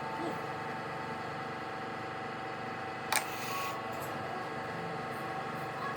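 Steady machine hum, with one sharp click about three seconds in.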